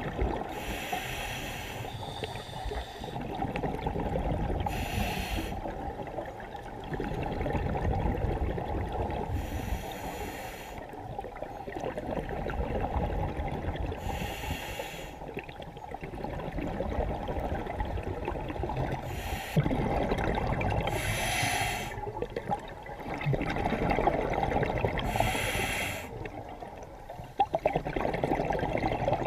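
A scuba diver breathing through a regulator underwater: a hissing, bubbling burst of breath about every four to five seconds over a steady low underwater rumble.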